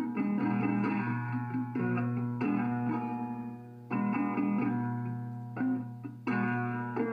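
Guitar solo: plucked notes struck every second or so, each left to ring out and fade, over a steady low note.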